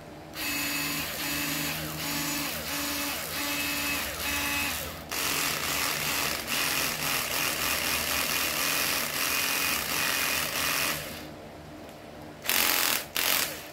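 Small cordless folding screwdriver (Panasonic EZ6220) running without load at its fast speed, its motor and gearbox whirring in a string of short pulses for about five seconds, then a steadier run for about six seconds. It stops, and there is one brief burst near the end.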